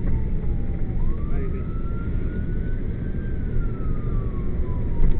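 Fire truck siren in a slow wail, its pitch rising and falling about once every four seconds, over the steady rumble of the moving truck's engine and road noise.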